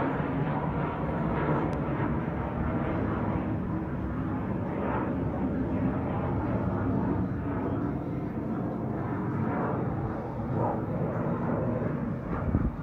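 Engine noise from a pair of display aircraft flying past, a steady drone. A brief low thump comes near the end.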